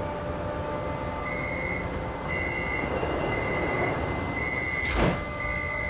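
Kaohsiung MRT train door-closing warning: a high beep repeating about once a second as the sliding doors close, with a sharp thump about five seconds in as the doors shut.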